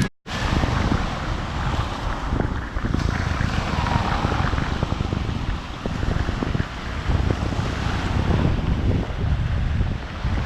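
Wind buffeting the microphone in gusts, over the wash of sea surf.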